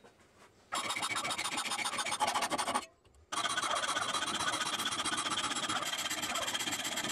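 Hacksaw cutting through the steel of a railroad-spike blade blank clamped in a vise: fast, steady sawing strokes starting under a second in, stopping briefly about three seconds in, then running on.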